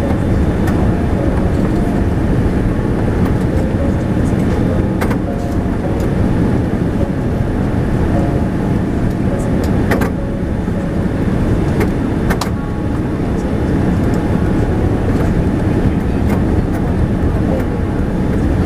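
Steady cabin noise of a Boeing 787-10 descending on approach, heard from a window seat: engine and airflow noise from its Rolls-Royce Trent 1000 engines. Three faint clicks come about five, ten and twelve seconds in.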